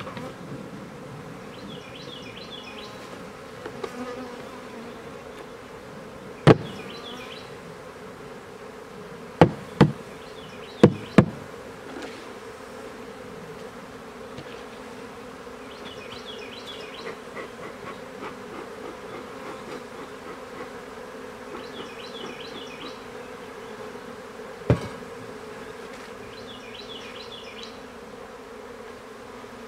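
Honey bees buzzing steadily around an opened hive, with sharp wooden knocks from the frames and boxes being handled: one about six seconds in, four close together around ten to eleven seconds, and one more near the end.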